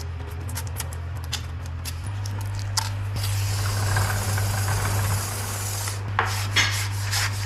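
Tire-shop work sounds: a steady low machine hum, with scattered clicks early on, then a hiss of compressed air about three seconds in that lasts roughly three seconds and cuts off.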